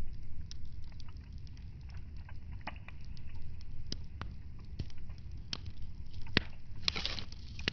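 Wood fire in a fireplace crackling, with irregular sharp pops over a low steady rumble and a brief hiss about seven seconds in.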